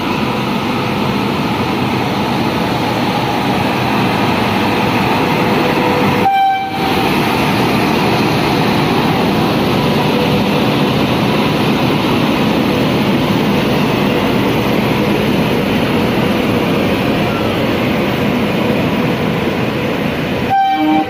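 Indian Railways WAP-7 electric locomotive and its rake of LHB coaches passing close by as the train pulls out: a loud, steady rush of wheel and running noise with a steady hum through it, briefly dropping out about six seconds in.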